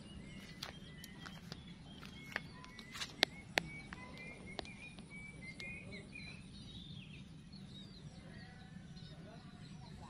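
Small birds chirping in a warbling run for the first two-thirds, over a steady low hum, with scattered sharp clicks and taps, the loudest two a little after three seconds in, from someone picking their way over fallen clay roof tiles.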